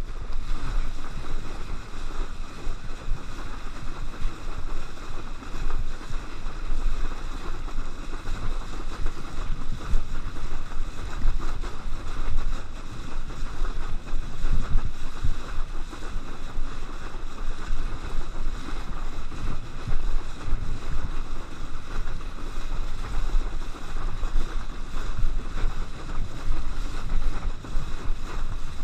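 Wind buffeting the microphone and water rushing and splashing under a kneeboard towed at speed behind a boat, a steady loud hiss with uneven gusts.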